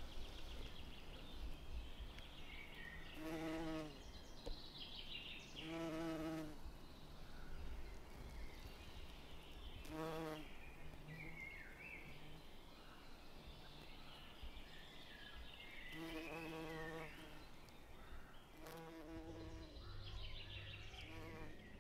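A buzzing insect passing close, heard as about five separate buzzes of about a second each with quieter stretches between.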